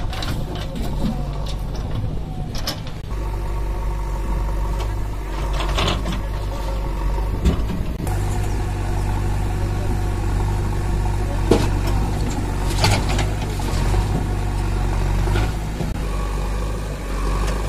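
Diesel engine of a JCB 3DX backhoe loader running as it loads soil into a tipper truck, a steady low hum with occasional knocks and clanks from the bucket and dumped soil. The engine note shifts abruptly about three and eight seconds in.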